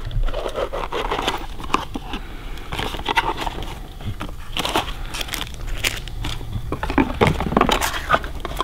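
Small cardboard parts box being opened by hand: flaps and paper insert crackling and crinkling, with irregular clicks as the new ignition coil is lifted out and handled.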